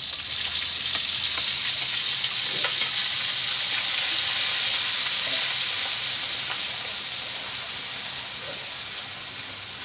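Garlic sizzling as it fries in hot oil in a pan, a steady hiss that is loudest a few seconds in and eases off toward the end, with a few faint ticks of stirring.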